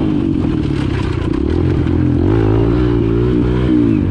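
Kawasaki KLX dirt bike's single-cylinder four-stroke engine revving up and down under throttle while riding, heard from on the bike. There is a rattle about a second in, and the pitch drops briefly near the end as the throttle eases off, then climbs again.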